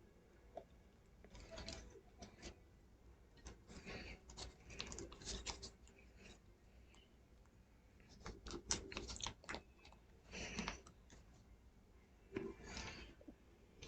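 Plastic model kit parts being handled and pressed together: faint, scattered clicks and short rustles.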